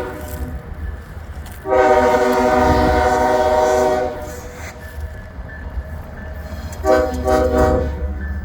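Diesel locomotive multi-chime air horn in a horn show. One blast cuts off right at the start, a long blast of about two seconds follows, and a shorter blast comes near the end, all over a steady low rumble.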